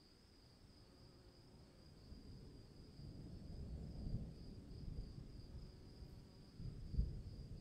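Low rumble of distant thunder, swelling about three seconds in and peaking in a louder low boom near the end, over a steady high-pitched hum.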